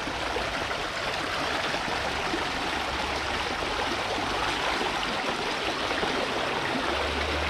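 Shallow river water rushing and babbling over stones in a steady, even flow.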